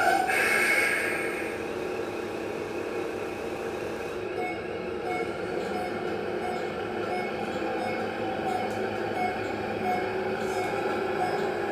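Toy-sized speaker of a GT Power RC sound module playing a steady simulated truck engine sound. From about four seconds in, short faint beeps repeat regularly.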